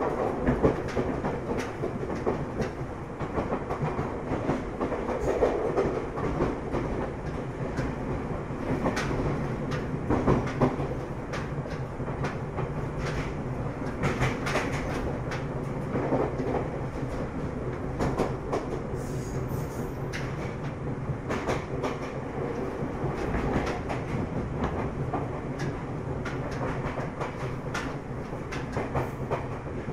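Ryutetsu 5000 series electric train running at a steady speed, heard from inside the car: a level motor and gear hum under wheels clicking and clattering over rail joints at irregular intervals.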